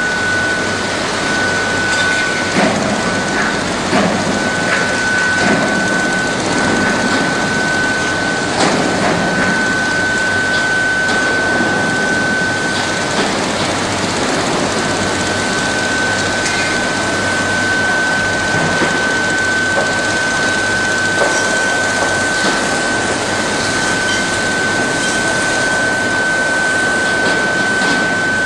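Induction melting furnace running: a steady high-pitched whine from the furnace, briefly dropping out a little after halfway, over a continuous roar of foundry noise with occasional clanks and knocks.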